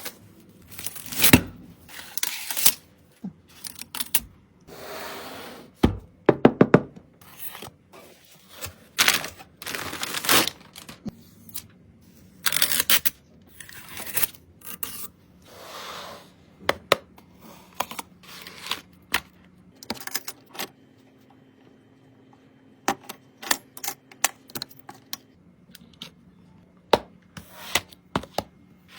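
Computer parts being handled during a PC build: irregular clicks, knocks and short scraping rustles, busiest in the first half.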